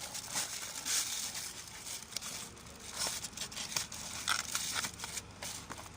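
Irregular rustling and light clicks of handling, with a faint low steady hum underneath.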